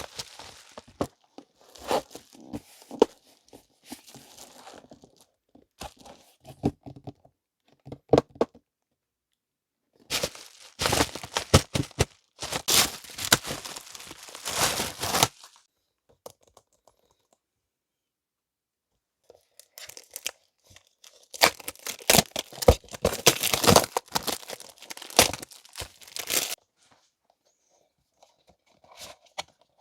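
Packaging being opened and unwrapped by hand: paper and plastic crinkling and tearing in two long stretches, with scattered short clicks and taps of handling between them.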